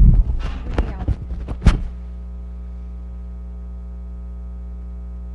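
Steady electrical mains hum, with a few loud knocks and rustles in the first two seconds, typical of a microphone being handled.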